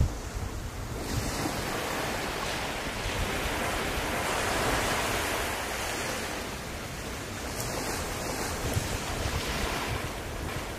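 Sea waves washing on a shore, an even hiss that swells about halfway through and then eases off, with wind on the microphone.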